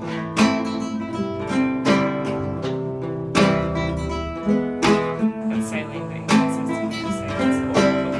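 Background music: acoustic guitar playing a steady run of plucked notes and strums.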